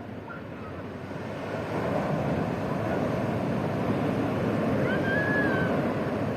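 Sea surf washing onto the beach, a steady rush that swells about one and a half seconds in. A single short high chirp sounds about five seconds in.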